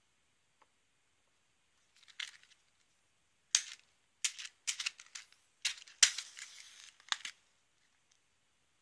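A wooden match struck again and again against the side of a matchbox to light the stove: a faint scrape about two seconds in, then a run of sharp rasping strikes, one near the end drawn out for about a second.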